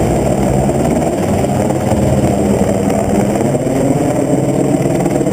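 Helicopter running steadily, a loud, even drone of engine and rotor.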